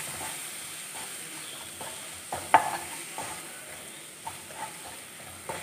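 Wooden spatula stirring and scraping a thick onion and spice masala around a nonstick frying pan, over a soft steady sizzle as the spice powders cook with a little water. A few short scrapes and knocks of the spatula, the loudest a little past the middle.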